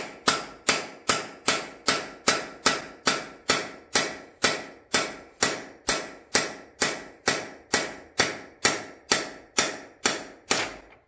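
Hammer blows on the end of a cam bearing tool's driver bar, driving the front cam bearing out of a 5.3 LM7 LS engine block. The sharp knocks come in a steady rhythm of about two and a half a second, each with a short ring, and stop near the end.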